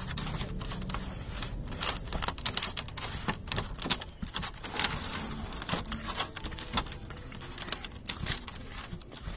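Hands kneading spice powders and a little water into a thick masala paste in a stainless-steel bowl: irregular wet squishes and sharp little clicks of fingers against the steel.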